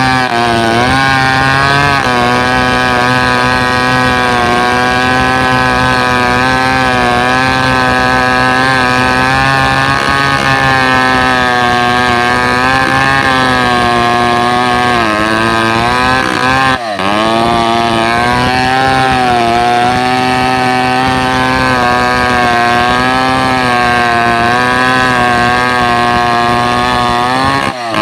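Two-stroke chainsaw engine running at high revs, its pitch wavering slightly. The pitch and level drop briefly about 17 seconds in and again near the end, then pick back up.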